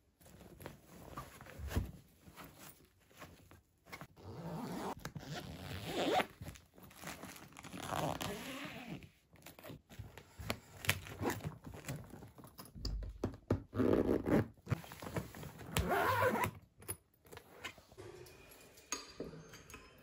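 Zipper of a hard-shell suitcase being pulled shut in several long strokes, mixed with the rustle and scrape of packed clothes and the lid being pressed down.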